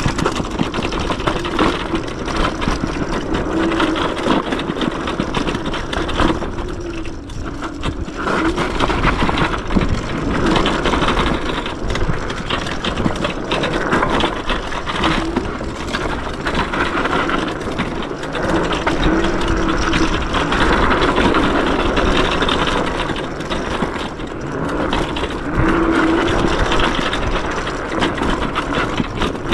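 Yume X11 electric scooter ridden fast over a dirt trail: steady wind and tyre noise with frequent knocks and rattles from the bumpy ground. A short motor whine comes and goes.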